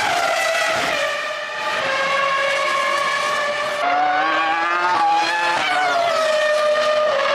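Formula One cars' V10 engines at high revs, the pitch climbing and dropping in steps with gear changes. A second engine note joins about four seconds in.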